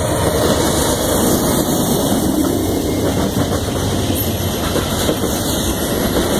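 Freight train passing close by: a Norfolk Southern diesel locomotive goes past, then open-top gondola cars roll by with steady, loud wheel-on-rail noise.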